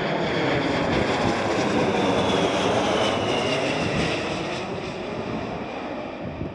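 British Airways Boeing 747-400 with four Rolls-Royce RB211 turbofans passing low overhead on landing approach. Loud rushing jet noise peaks a second or two in, then fades as the airliner moves away, with a faint high whine falling in pitch.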